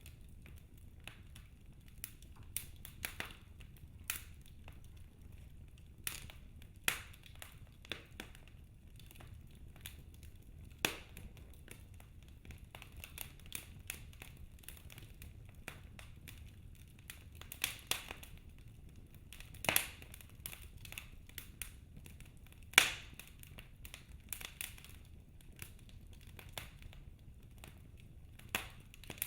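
Wood fire crackling in a fireplace: irregular sharp pops and snaps, a handful of them much louder, over a faint steady low rumble.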